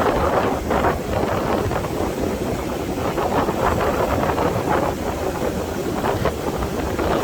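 Strong wind buffeting the microphone in uneven gusts, over the wash of ocean surf breaking on the beach.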